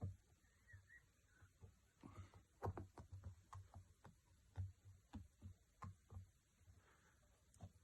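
Faint, irregular light taps and clicks of hands handling a phone, pressing its new back glass down onto the glued body.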